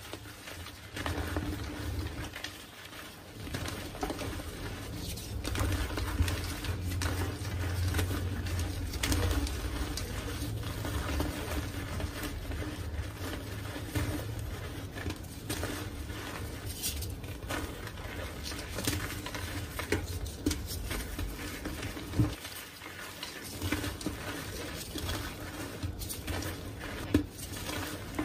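Hands squeezing and crumbling reformed gym chalk into loose powder: a steady stream of soft crunches and crumbles.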